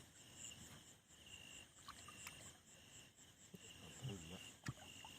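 Night insects chirping faintly in repeated pulsed trains of high-pitched calls. A brief low voice about four seconds in, and a single sharp click just after.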